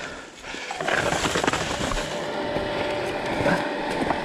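Enduro dirt bike running with a steady engine note under rough scraping and clattering, with a piece of wood jammed in its wheel. The noise rises sharply about a second in.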